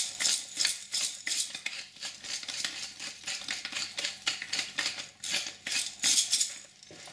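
Pepper mill being twisted over food: a rapid series of gritty grinding crunches, about three or four a second, that stops near the end.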